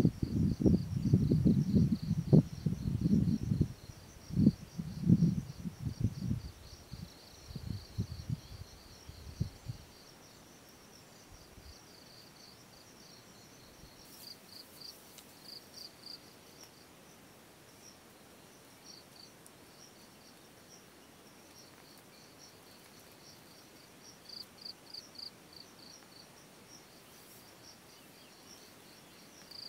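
Insects chirping in a steady, high, pulsing chorus. For about the first ten seconds, louder low rumbling gusts of wind on the microphone cover them, then stop.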